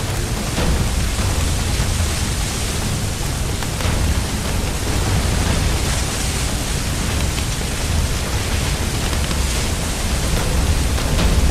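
Steady rushing noise with a deep rumble underneath and a few faint crackles, a sound effect of the kind laid over water hoses playing on a burning building.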